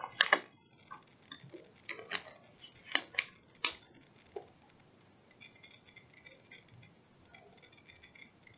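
Sharp metallic clinks and knocks of gear being handled on a bass boat's deck, about eight in the first four seconds, the loudest about three seconds in. From about five seconds on come faint, high chirps.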